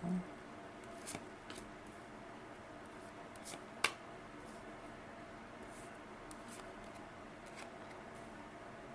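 Tarot cards being handled and laid out: a few scattered short clicks and rustles over quiet room tone, the sharpest about four seconds in.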